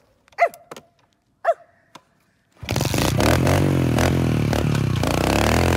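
Single-cylinder four-stroke engine of a Kawasaki KLX pit bike starting abruptly about two and a half seconds in, then running at a steady idle with a slight rise in revs near the end.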